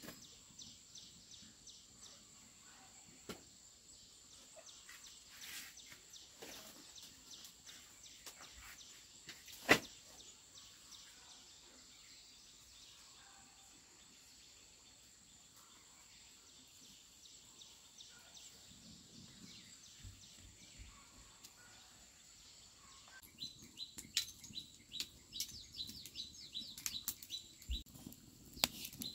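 Birds chirping in fast repeated high series over a faint steady high whine. A few sharp clicks stand out, one loud one about ten seconds in. The chirping grows louder and denser near the end.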